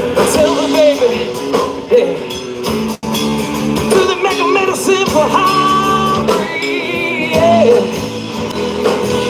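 Live rock band playing, with electric guitar, drums and a voice singing.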